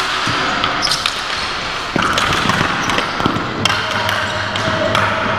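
Ball hockey play on a concrete arena floor: sticks clacking and a plastic ball striking the floor, heard as scattered sharp knocks that echo in the large hall.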